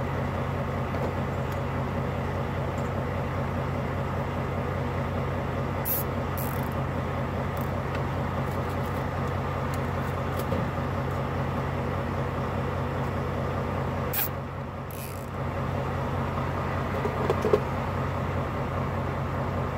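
Volvo VNL semi-truck idling, a steady low hum heard inside the cab that dips briefly about three-quarters through. A few short, faint rustles or clicks come from the wiring harness being handled.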